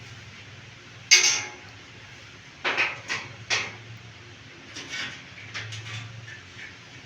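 Metallic knocks and clanks from repair work on a bed base: one loud ringing strike about a second in, a quick cluster of three or four strikes a couple of seconds later, then lighter knocks and clicks.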